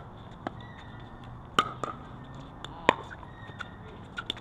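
Pickleball paddles striking the hard plastic ball in a rally: two loud pops about a second and a half in and again near three seconds, with fainter clicks of other hits and bounces in between.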